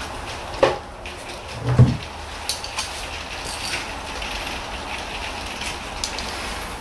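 Two knocks of metal parts and tools being handled at a car's front brake, the second a louder low thump, followed by a few light clicks, over a steady hiss.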